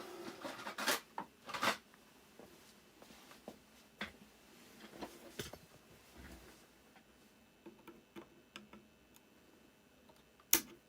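Side cutters snipping the excess leads of a freshly soldered X2 capacitor on a power supply board: two sharp clicks about a second apart, then a few more scattered clicks and light taps from handling the tools and board.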